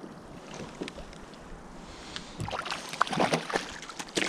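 Water lapping and splashing against a kayak hull, soft at first, then a run of small knocks and splashes in the last two seconds.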